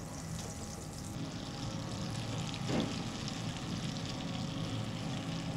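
Breaded fish sticks frying in a pan: a steady sizzle.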